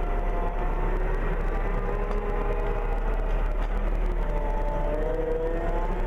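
CLAAS Arion tractor running steadily as it pulls a rotary hay rake, its engine note drifting slightly up and down in pitch over a steady low hum.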